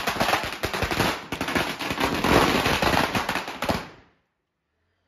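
A string of firecrackers (a ladi) bursting in a fast, unbroken run of bangs, cutting off about four seconds in.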